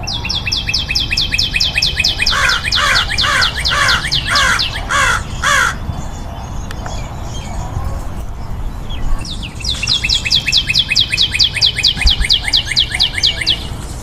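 Birds calling: two bouts of a fast, even trill of high, downward-slurred notes, several a second. Over the middle of the first bout comes a slower series of lower calls, about two a second.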